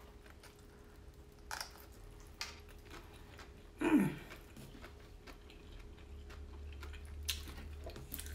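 Quiet chewing of food, with a few soft mouth clicks. About four seconds in comes one louder, short sound that drops in pitch.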